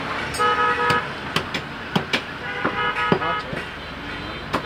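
Butcher's cleaver chopping beef on a wooden stump block, a handful of sharp chops. Vehicle horns toot twice in the background.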